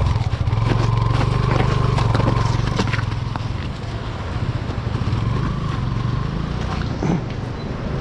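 Motorcycle engine running at low revs as the bike picks its way over a rough, rocky track, with loose stones clicking and crunching under the tyres.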